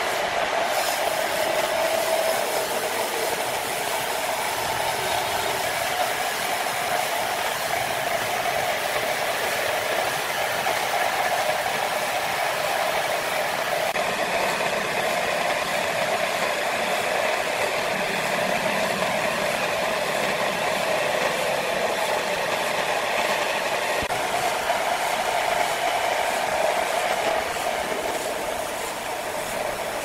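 Horizontal band sawmill running, its band blade cutting lengthwise through a large mahogany log with a steady, continuous machine noise that eases slightly near the end.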